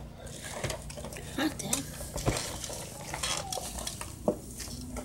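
Lettuce and spring mix rustling as they are handled into a pan, with a few light knocks and clinks against the pan.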